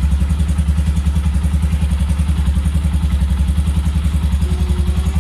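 Italika motorcycle engine idling steadily, with an even, rapid pulse. It has just been started on a battery that was revived by topping up its electrolyte, and the battery is holding enough charge to start it.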